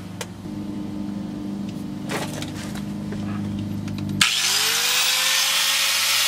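Angle grinder switched on about four seconds in, its motor whine rising as it spins up and then running steadily at full speed with a loud hiss, set against the steel exhaust pipe to cut it.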